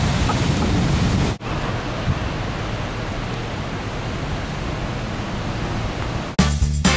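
Ocean surf washing in a steady hiss, broken by a sudden cut about a second and a half in and then continuing slightly quieter. Upbeat swing music starts near the end.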